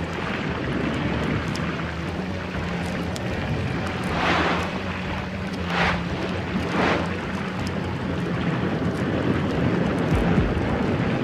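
Rushing underwater ambience over a low steady drone, with three short swooshes about four, six and seven seconds in.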